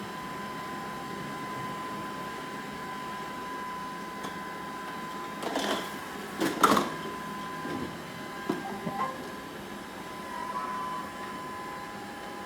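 iRobot Roomba robot vacuum running with a steady motor hum and a thin high whine, with a couple of short knocks about halfway through and a few lighter clicks after.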